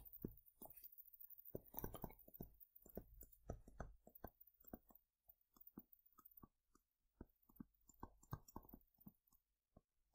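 Faint, irregular ticks and scratches of a stylus writing on a tablet, several strokes a second, thinning out towards the end.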